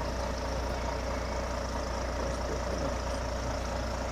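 Heavy Volvo semi-truck's diesel engine idling steadily while the truck sits stuck in the mud.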